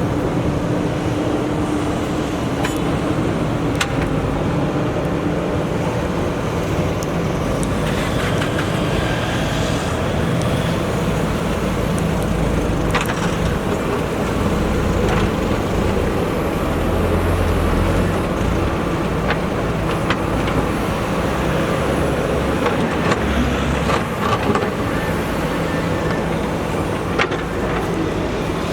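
JCB 3DX backhoe loader's diesel engine running steadily under working load, swelling briefly in the middle, with scattered sharp knocks of the machine at work.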